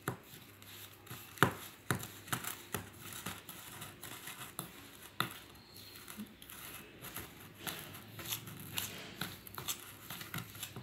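A utensil scraping and clicking irregularly against a small bowl while stirring a thick paste of ground sugar, black pepper powder and ghee. The sharpest clicks come about one and a half and two seconds in.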